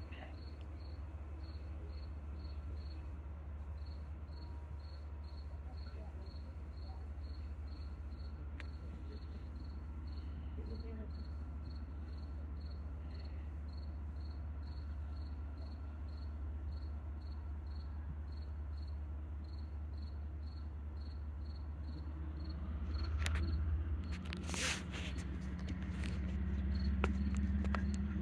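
Crickets chirping in an even rhythm, about two to three chirps a second, over the low steady rumble of an approaching train's diesel locomotive, which grows louder over the last few seconds.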